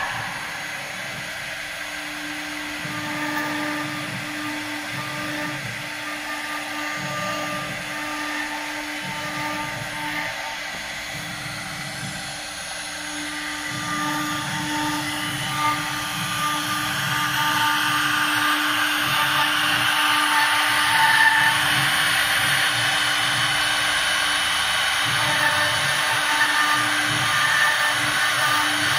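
Air-cooled CNC router spindle running at high speed with a steady whine while its bit carves lettering into a wooden cylinder turning on a rotary axis, the cutting noise over the whine. It grows louder about halfway through.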